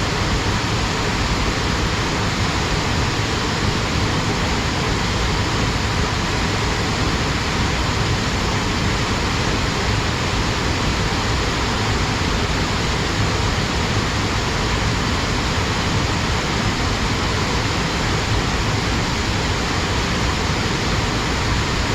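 Waterfall pouring steadily, a constant dense rush of falling water.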